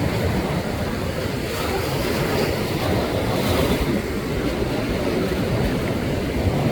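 Rough ocean surf: waves breaking and washing as a steady rushing noise, swelling a little about three seconds in.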